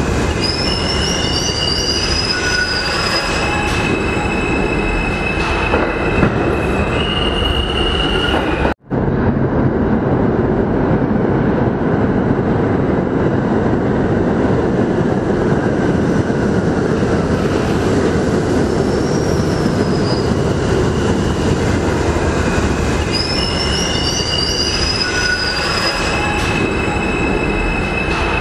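Subway train running along an underground station platform: a steady rumble of wheels on rail with high, wavering wheel squeals in the first several seconds and again near the end. The sound cuts out for an instant a little under nine seconds in.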